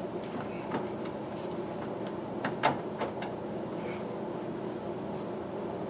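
Scattered light clicks and knocks of hand tools and trim parts being handled inside a truck cab, with one sharper knock about two and a half seconds in, over a steady background hum.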